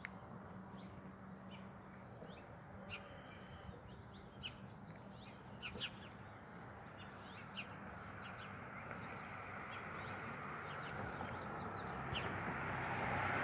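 A bird giving a dozen or so short, high chirps at uneven intervals over a steady low hum, with a broad rushing noise growing louder toward the end.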